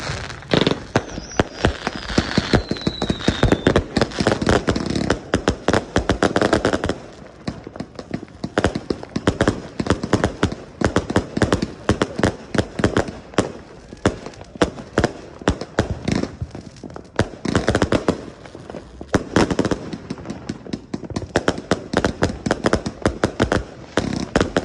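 Odyssey 153-shot firework cake firing in rapid succession: a continuous string of launch thumps and aerial bursts, several a second, thickest over the first several seconds and again past the middle. One shell gives a falling whistle about a second in.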